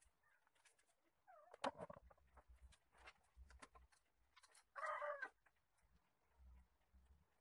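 Faint animal calls in the background: a short wavering call about a second and a half in and a louder, half-second call about five seconds in. Light clicks and rustles of artificial vines being handled run between them.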